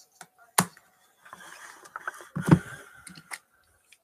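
Trading cards and their packaging being handled on a table: soft plastic and paper rustling with a few light taps, and a louder knock about two and a half seconds in.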